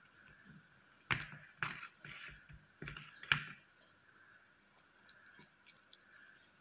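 A metal fork cutting down through a whipped-cream cake, with about six sharp clicks as it strikes the cake board beneath. A few fainter small clicks follow near the end as a forkful is lifted and eaten.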